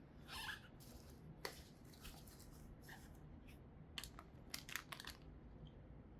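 Faint handling noises from work on the brake job: a short scrape about half a second in, then scattered light clicks, with a quick cluster of them around four to five seconds in.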